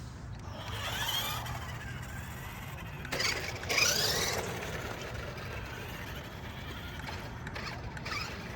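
Electric drive motor and gears of a military-style RC truck whining in short bursts, the pitch rising and falling as it speeds up and slows, loudest from about three to four and a half seconds in.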